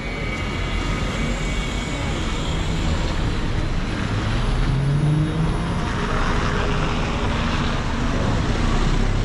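Red London double-decker buses pulling past at close range: a steady engine drone and tyre noise, strongest about halfway through, over continuous busy street traffic.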